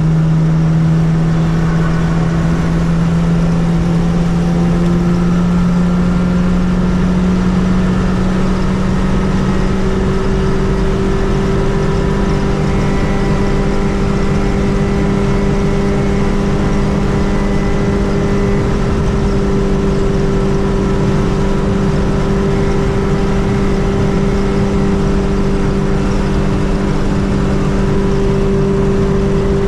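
Fiat 600 with a swapped-in 1.6-litre engine driving at motorway speed. The engine note climbs gently for the first several seconds as the car gathers speed, then holds steady at a cruise.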